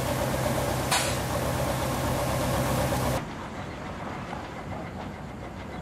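Tractor engine running steadily at low revs, with a brief hiss about a second in; the engine sound cuts off abruptly about three seconds in, leaving a quieter outdoor background.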